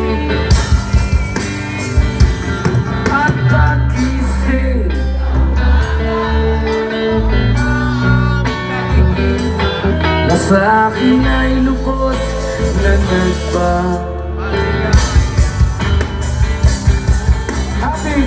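Live rock band playing loud through the stage speakers: electric guitars, bass and drum kit.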